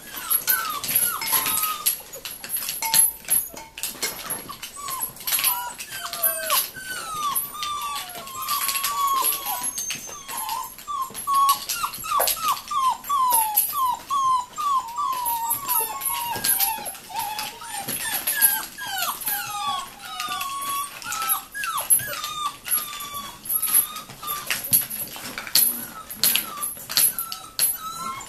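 43-day-old Rhodesian Ridgeback puppies whimpering and yipping as they play: many short, high whines that rise and fall, thickest through the middle stretch. Frequent small knocks run among the calls.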